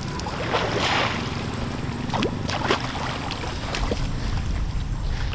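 Water sloshing and splashing as water buffalo shift and wallow in shallow water, with one larger splash about a second in and a few small splashes after, over a low rumble of wind on the microphone.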